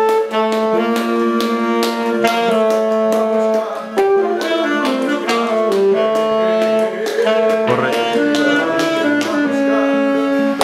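Acoustic instrumental music: a melody of held notes, several sounding at once, over regular percussion hits, an unplugged version of a phone ringtone tune.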